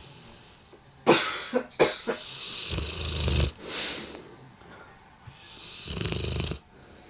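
A sleeping bullmastiff snoring: a few sharp, loud snorts about a second in, then two long low snores a few seconds apart, with a breathy exhale between them.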